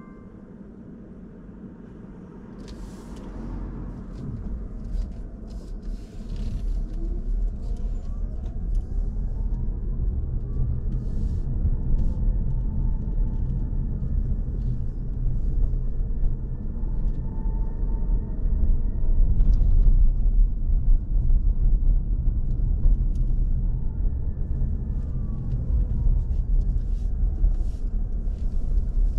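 Car cabin noise: engine and road rumble of a car driving along, getting louder over the first few seconds as it picks up speed, then running steadily.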